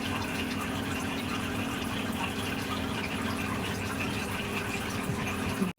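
Steady rushing noise with a low hum underneath, like room noise or running water. Near the end it breaks with a brief louder pop and cuts out suddenly.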